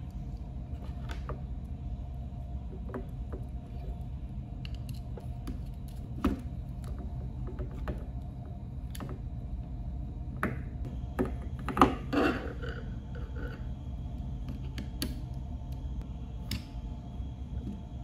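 Light scattered clicks and taps of wires, a screwdriver and plastic push-button and contactor housings being handled during wiring, with a slightly louder cluster of knocks about twelve seconds in, over a steady low hum.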